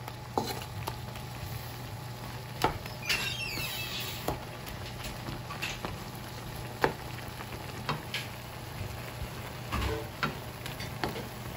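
Wooden spatula stirring shrimp and vegetables in a wok, with scattered sharp knocks and a brief scrape against the pan, over a steady low sizzle of the sauce.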